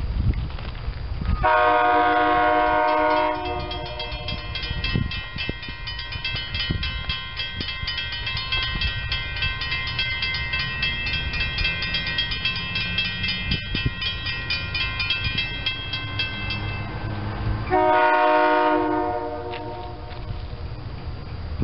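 SEPTA Silverliner V electric train's horn sounding two long blasts, one about a second in and one near the end. Between them a crossing bell rings rapidly and steadily, over a low rumble of the approaching train.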